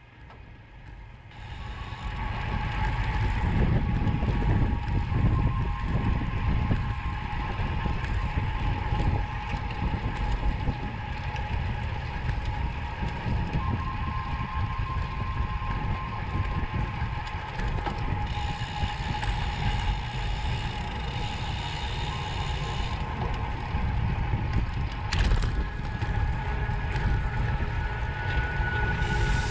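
Road bike rolling along at speed, heard from a camera mounted on the handlebars: steady wind and tyre rumble with mechanical rattle and ticking from the bike. It is quieter at first and picks up about two seconds in.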